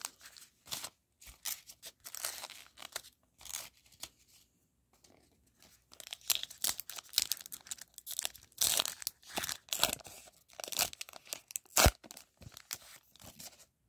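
A foil-lined Topps Heritage baseball card pack wrapper being torn open by hand: irregular tearing and crinkling that gets busier halfway through, with one sharp snap about twelve seconds in.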